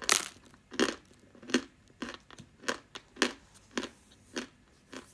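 Close-up chewing of dry, crunchy edible clay or chalk: a steady run of sharp crunches, about two a second.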